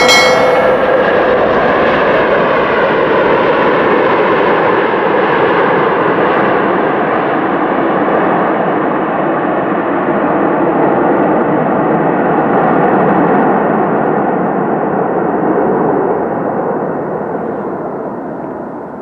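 Jet airliner's engines running loud on the runway as the twin-engine Air Transat jet passes and moves away, the noise fading over the last few seconds. A short bell-like chime rings out right at the start.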